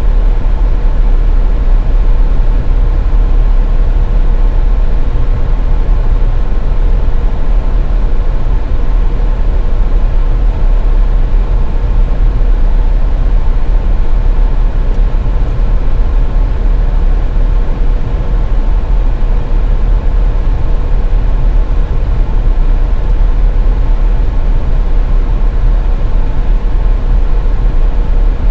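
A car driving on the highway: a steady, loud, low road and engine rumble, with a faint steady hum above it.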